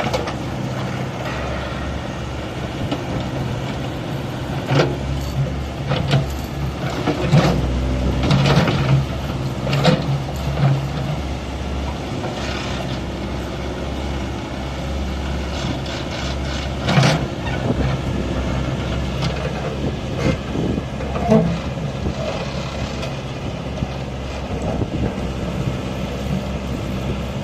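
Mechanical digger's diesel engine running steadily under load, with scattered clanks and knocks as it digs into stony ground.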